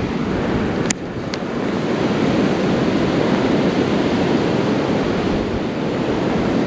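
Steady rushing of flowing creek water, with two sharp clicks about a second in.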